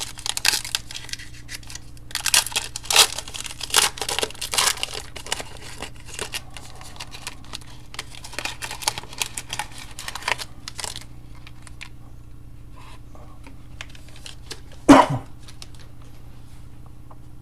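Foil wrapper of a trading card pack being torn open and crinkled in the hands: irregular rips and crackles for the first ten seconds or so, then they stop. One brief loud sound comes about fifteen seconds in.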